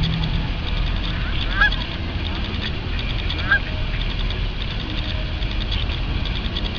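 Canada geese honking: two short calls about two seconds apart, over a steady low rumble.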